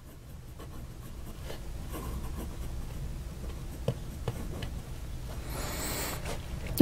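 A fine steel fountain pen nib gliding over paper as a word is written, a faint, soft scratching with a few small ticks as the nib lifts and sets down between strokes.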